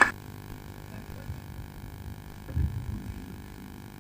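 Low, steady background hum with a few soft low thumps, about a second and a half in and again a little past halfway.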